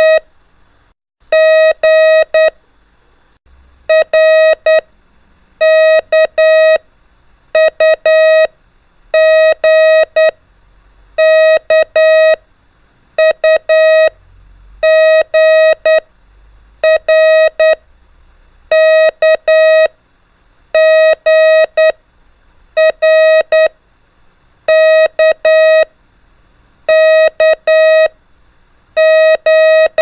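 Morse code practice tone: a single-pitch beep keyed in dots and dashes sending the letters R, K, U and G for listen-and-decode practice. Each letter is a short cluster of beeps, with a pause of about a second between letters.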